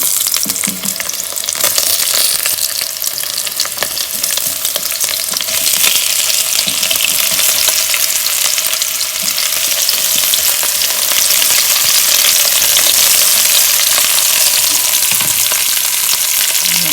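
Onion frying in hot oil in a pan: a steady sizzle with crackles and the scrape of stirring, growing a little louder about six seconds in.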